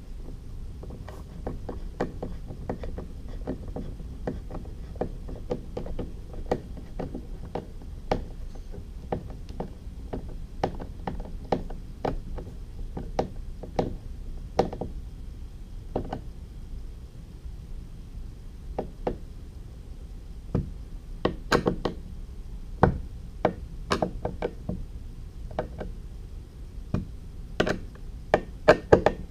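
Irregular clicks and knocks of tools and hardware being handled while the update kit's plate is screwed onto the seat, getting denser and louder in the last third.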